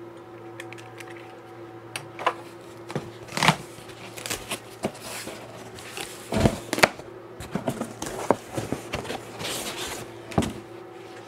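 A cardboard shipping carton being opened by hand: its flaps are pulled open and folded back with scrapes, rustles and a few dull knocks, the loudest about six and a half seconds in. Near the end a foam packing sheet is lifted out with another thump. A steady low hum runs underneath.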